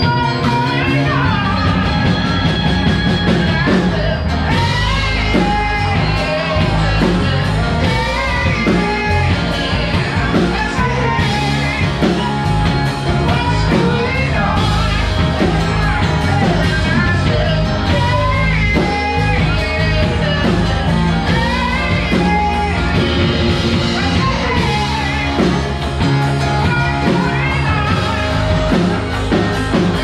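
Live rock band playing: a singer's voice over electric guitars, bass guitar and a drum kit, continuous and loud.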